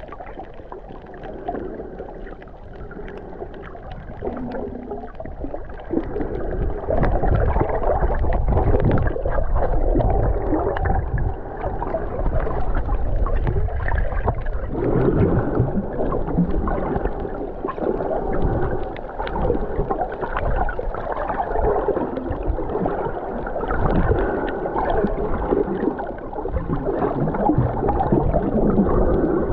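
Muffled underwater sound of swimming, picked up by a camera held underwater: water rushing and gurgling as the swimmer moves. It grows louder about six seconds in.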